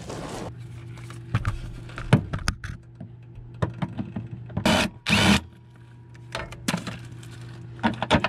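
Cordless drill/driver with a socket on an extension spinning a bolt in two short bursts about halfway through, with scattered metallic clinks of tools and hardware around them.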